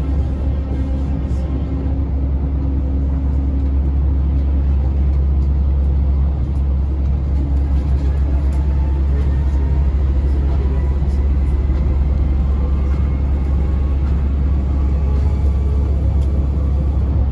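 Yui Rail monorail car running along its track, heard inside the cabin: a steady, loud low rumble from the rubber-tyred straddle-beam train in motion.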